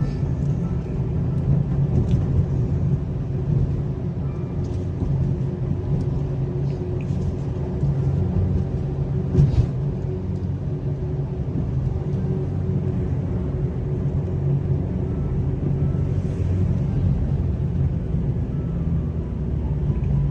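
Steady low rumble of a car, road and engine noise running evenly throughout.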